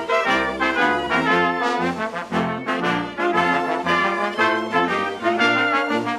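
Background music led by brass instruments, trumpets and trombones, with a steady beat and a moving bass line.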